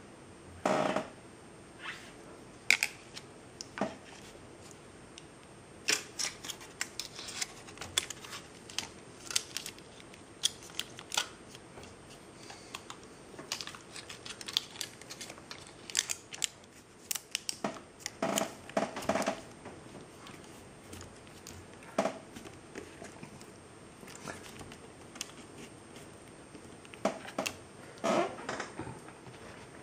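Irregular clicks, rustles and short scraping, crinkly bursts from hands handling wires and sticking clear tape to hold a sensor wire on an electric kettle.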